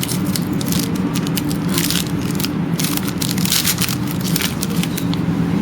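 Crinkling and rustling of a trading-card pack's wrapper being torn open and the cards handled, in many irregular sharp crackles. A steady low hum runs underneath.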